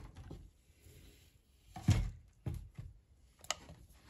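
A few short, soft knocks and scrapes of a plastic spoon being handled in a clay mortar of green papaya salad.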